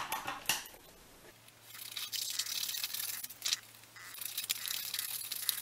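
Scissors cutting through thin card along a straight line: a steady scratchy shearing sound in two long cuts, the first starting after about a second and the second a little past halfway.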